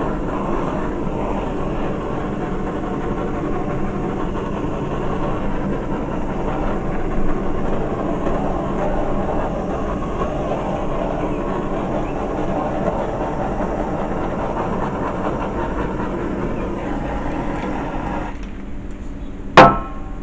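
Handheld butane torch flame hissing steadily as it is passed over wet acrylic paint to bring up cells. It cuts off about two seconds before the end, followed by a single sharp click.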